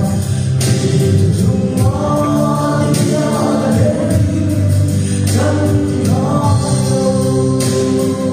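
A man singing a Mizo gospel song solo into a microphone, amplified through a sound system, with long held notes over a steady instrumental accompaniment.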